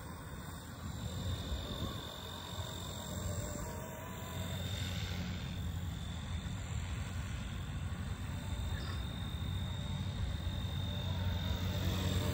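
Battery-powered RC helicopter flying at a distance: a steady low hum from the rotor with a thin, constant high whine from the motor and main gear drive, getting louder near the end as it comes closer. The main gear is 3D-printed PETG carbon fibre, and the owner wonders whether it makes the helicopter quieter than the stock gear.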